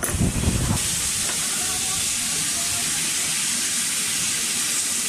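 Narrow-gauge steam locomotive venting steam in a loud, steady hiss that comes up within the first second.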